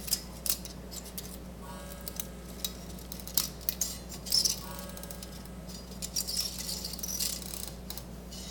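Plastic 8mm film take-up reel and film leader being handled while the film is threaded onto the reel: scattered small clicks and light rattling, with a couple of brief scrapes.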